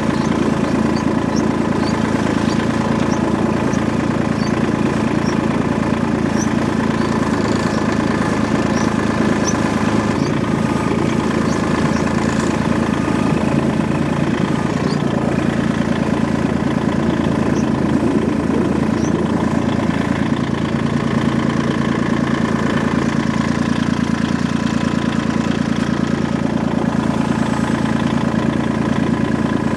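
An engine running steadily at idle, its pitch and level unchanged throughout.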